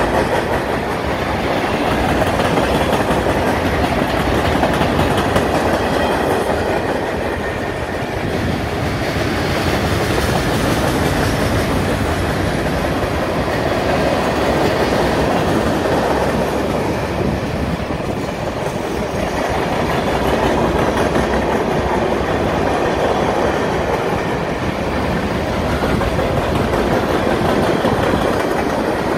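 Freight train cars, gondolas and then tank cars, rolling past close by: steel wheels running on the rails in a loud, steady rumble that swells and eases every few seconds.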